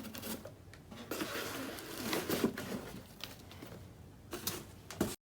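Rustling and crinkling of paper packaging with light taps and knocks as an unboxing is handled, cutting off suddenly near the end.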